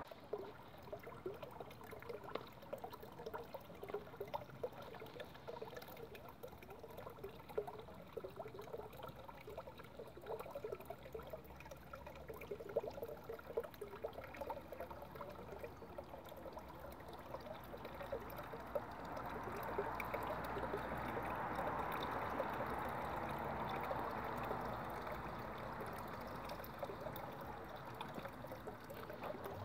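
Water trickling steadily, swelling louder for several seconds in the second half.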